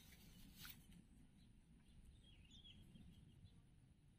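Near silence: faint outdoor ambience with a few faint, high bird chirps about two to three seconds in, and a single faint tick just under a second in.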